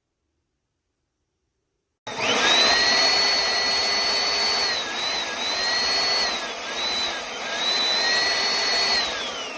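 Silence, then about two seconds in an Oreck Commercial 2100RHS upright vacuum switches on and spins up fast to a loud, high-pitched whine over a rush of air. The whine dips in pitch briefly several times as it runs.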